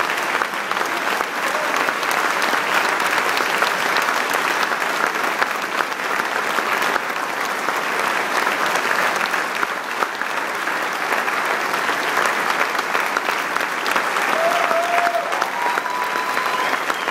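A large auditorium audience applauding steadily, many hands clapping throughout.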